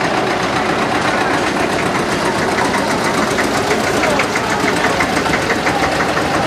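Old farm tractor engines running at low speed as the tractors pass in a slow procession, with a fast, even knocking beat.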